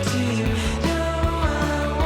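Background rock music with singing, a bass line and a steady drum beat.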